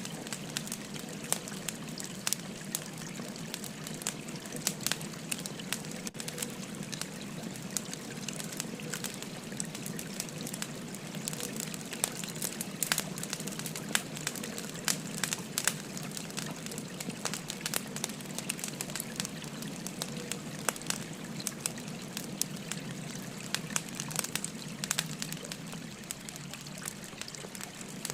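Firewood burning, crackling with many small sharp pops. Under it runs the steady babble of a flowing river.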